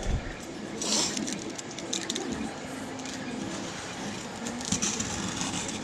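A cardboard box being handled and set on a table: irregular rustling and scraping, with louder bursts about a second in and again near the end.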